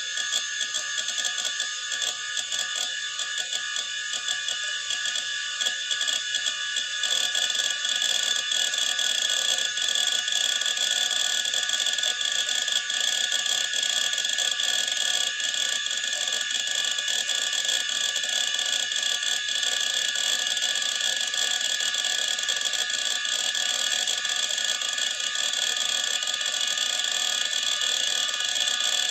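Old hard disk drive running: a steady whine from the spinning platters under fast, dense clicking of the head actuator seeking. The sound grows fuller and slightly louder about seven seconds in.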